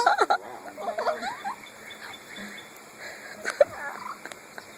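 A parrot making short, warbling chatter calls that glide up and down in pitch in the first second and a half, then a single sharp click with a brief call about three and a half seconds in.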